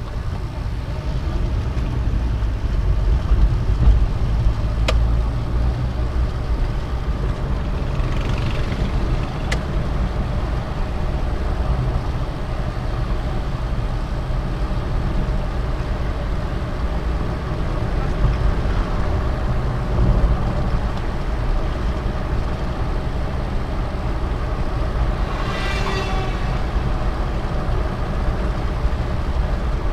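Suzuki Carry Futura 1.0-litre engine and road noise as the pickup cruises, a steady low drone. Near the end a brief rising tone cuts in once.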